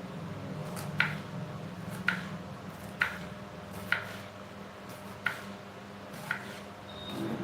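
A series of sharp taps, about one a second, six in all, over a steady low hum.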